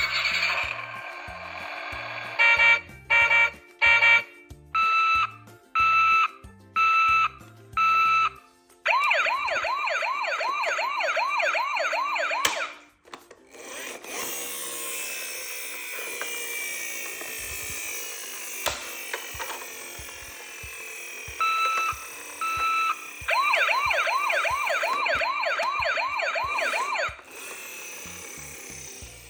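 Electronic siren of a battery-powered toy emergency vehicle. It sounds a steady tone, then a string of short beeps, then a fast warbling siren. After a hissy stretch with steady clicking, it gives two more beeps and the warble again.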